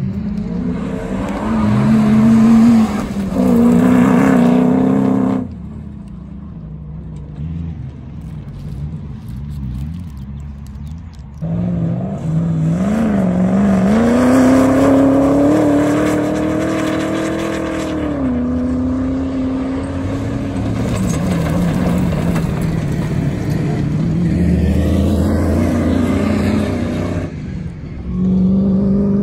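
Comp safari off-road race cars being driven hard past on a dirt course, engines revving up and down through the gears. It is loud at first, quieter for a few seconds from about six seconds in, then loud again as a car accelerates past with its pitch rising and then dropping away.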